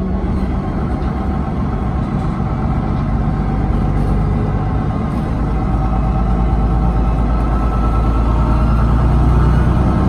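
MAN NG363 Lion's City articulated bus under way, its diesel engine and Voith automatic gearbox driving it along, heard from inside the passenger cabin. A steady low drone that grows a little louder near the end.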